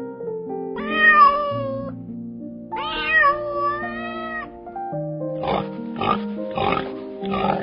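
Domestic cat meowing twice, two drawn-out meows that rise in pitch and then hold, over steady background music. In the second half, short sounds repeat about every half second with the music.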